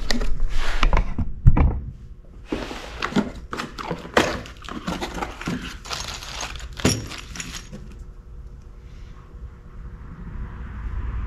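A double-roller timing chain set and its packaging being handled and unpacked: rustling with a string of knocks and clatters over the first seven seconds, then quieter handling.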